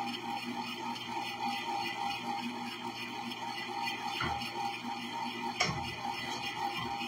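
Electric ice cream maker running steadily, its motor humming as it churns the ice cream. Two short knocks come about four and five and a half seconds in.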